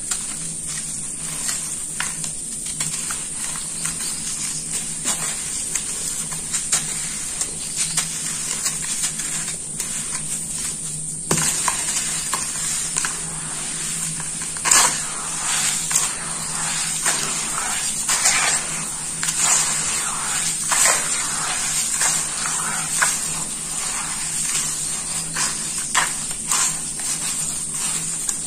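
Hands squishing and squeezing wet sand-and-cement mud in a metal pan, with irregular wet squelches and crumbling clumps. It gets busier and louder about eleven seconds in.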